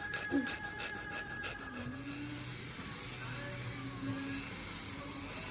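Nail file rasping across fingernails in quick back-and-forth strokes for about a second and a half, then a steady high-pitched hiss.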